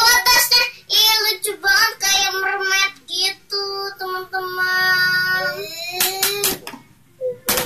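A young girl singing, with a long held note in the middle, followed by a few sharp clicks near the end.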